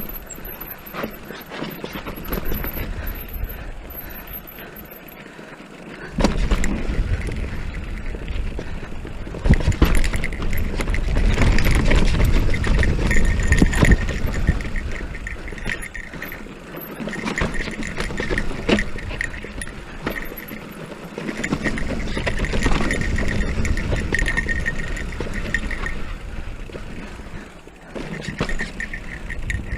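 Haibike electric mountain bike riding over a rough dirt trail: tyres on dirt and rock and the bike rattling, with wind rushing over the microphone that gets much louder about six seconds in. Rapid ticking comes and goes throughout.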